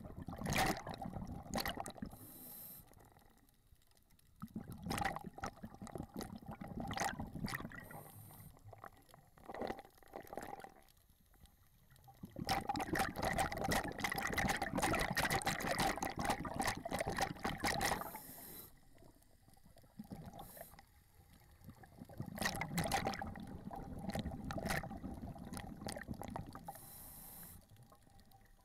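Scuba diver's regulator breathing heard underwater: spells of bubbling and gurgling from exhaled air come every few seconds, the longest lasting about five seconds in the middle, with quieter pauses between breaths.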